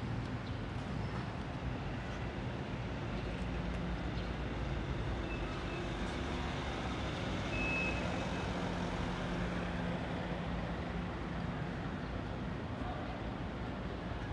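Steady urban traffic noise with the low hum of a vehicle engine. Two short, faint high beeps come in the middle.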